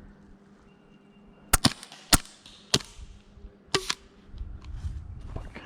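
Gas airsoft pistol firing about five sharp shots at an uneven pace, in the middle of the stretch.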